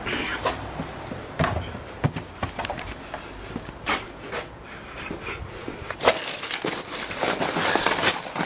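Irregular knocks, clatters and crunching of household items being knocked over and thrown about, becoming a denser, more continuous clatter over the last few seconds.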